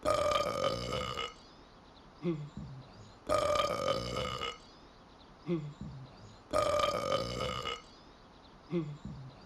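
A loud belch on one held pitch, lasting about a second and a quarter, repeated three times about every three and a quarter seconds as a loop. A brief rising sound comes about a second before each belch.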